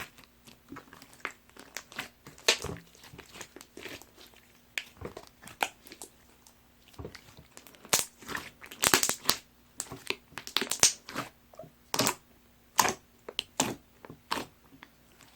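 A large batch of white school-glue slime being squeezed and pressed by hand, making irregular sticky pops and clicks.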